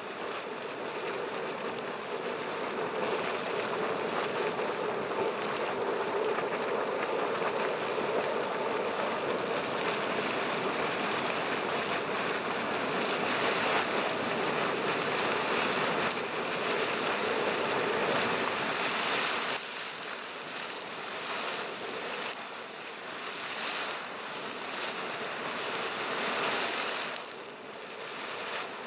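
Artesia Geyser erupting: boiling water surging and splashing up out of its vent in a steady rushing splash, a little quieter in the last third.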